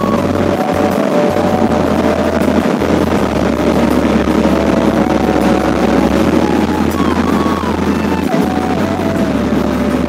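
Background music with a melody stepping between held notes over a blocky synth bass line, laid over the steady rush of wind and engine noise from a motorcycle riding at highway speed.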